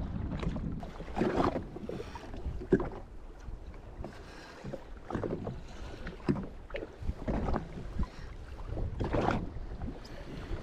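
Wind buffeting the microphone and small waves lapping and slapping against the hull of a Sea-Doo Fish Pro personal watercraft sitting on the water. The sound comes in uneven swells, with no engine running.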